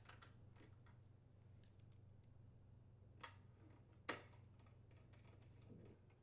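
Faint light clicks and taps as a mounting screw and the plastic engine housing parts are handled and the screw is started with a hand screwdriver, with two sharper ticks about three and four seconds in.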